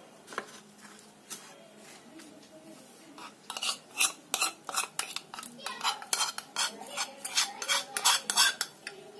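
Metal spoon scraping and tapping against the inside and rim of an aluminium pan as thick melted chocolate is scraped out into a bowl. Quiet at first, then from about three seconds in a quick run of clinks and knocks, several a second.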